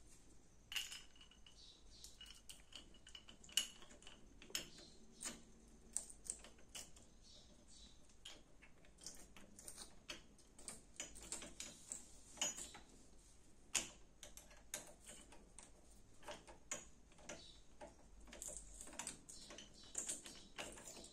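Faint, irregular metallic clicks and light taps as a steel TV wall-mount bracket is pressed against the wall and its screw is driven in by hand.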